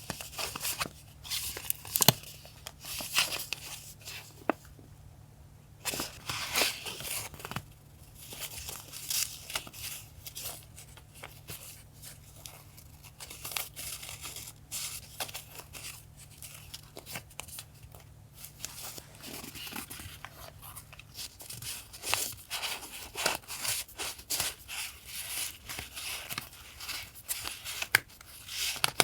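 Close-up paper handling: sheets and packaging rustling, crinkling and tearing in irregular bursts, with scattered sharp taps and clicks and a brief lull a few seconds in.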